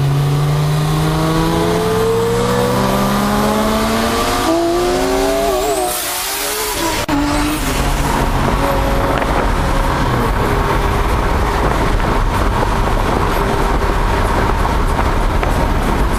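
Lamborghini Murciélago LP640's V12 at full acceleration, heard from inside the cabin: its pitch climbs steadily for about four seconds, then drops with a gear change about six to seven seconds in. After that, heavy wind and road noise at high speed, with the engine running steadily underneath.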